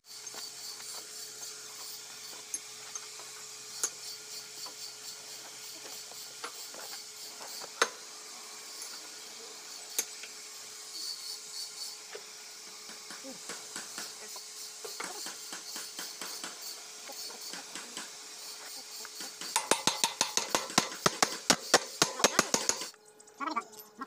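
Scattered metal clinks and knocks as a sprocket is handled and slid onto the splined axle shaft inside a Komatsu GD511A motor grader's tandem drive housing, then a quick run of loud sharp taps, about seven a second, for a few seconds near the end.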